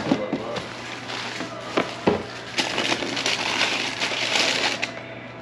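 A cardboard shoebox is set down on a counter and its lid handled, giving a few sharp knocks. Then tissue paper crinkles and rustles for about two seconds as the box is unpacked.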